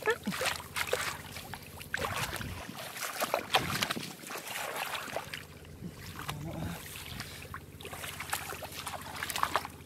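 Hands sloshing and squelching in shallow muddy water, groping through mud and rice stalks for catfish, with irregular small splashes and slaps.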